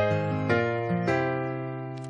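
Background music: a few keyboard chords struck about half a second apart, the last one held and fading.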